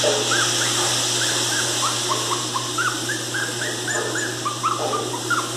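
Pinscher puppy whining: a quick run of short, high-pitched cries, each rising and falling, about three a second, over a steady hiss. The owner takes the crying for the puppy missing its mother.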